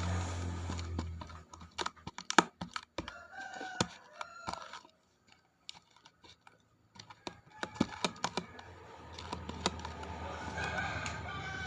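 Sticky homemade slime being squeezed and pulled by hand, giving irregular wet clicks and pops. A chicken calls in the background, with short calls a few seconds in and a longer, slightly falling call near the end.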